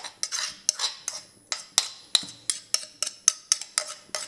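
A spoon tapping and scraping against the rim of a small bowl, knocking grated apple into a saucepan of sauce: a quick run of sharp clinks, about four a second, some with a short scrape.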